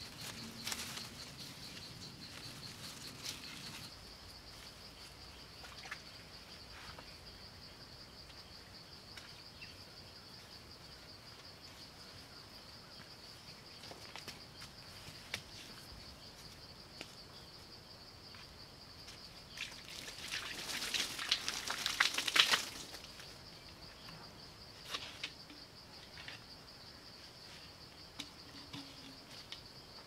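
Insects droning steadily at a high pitch. About twenty seconds in comes a louder crackling rustle lasting a couple of seconds, with a few fainter rustles and ticks elsewhere.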